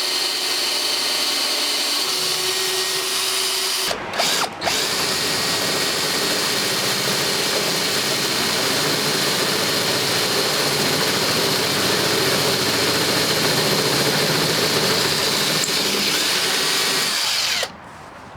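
Electric drill boring through a garage door's side panel, running steadily, with a brief stop and restart about four seconds in; it stops near the end.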